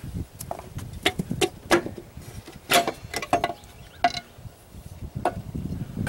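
Cast aluminium belt (CVT) cover of an Arctic Cat 250 ATV being worked loose from the engine case by hand: a string of about ten sharp, irregular knocks and clinks, some with a brief metallic ring.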